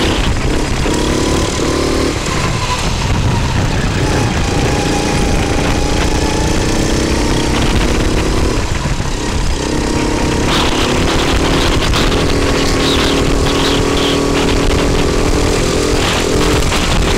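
Rental go-kart engine running hard on board, its note dropping away a few times and climbing again as the throttle is lifted and reapplied, with other karts running close by.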